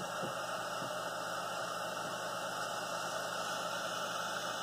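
Handheld butane torch burning with a steady hiss as its flame heats a dab rig's banger to a high temperature before a dab.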